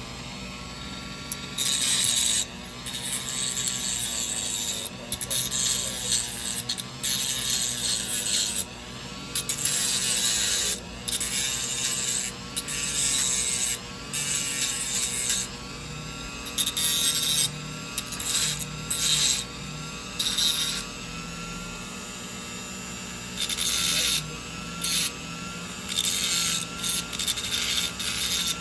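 Dremel rotary tool running, its whine dipping and rising in pitch as it is pressed on and off metal, with repeated loud bursts of grinding and scraping. It is cleaning residue off battery terminal tabs so they will spot weld properly.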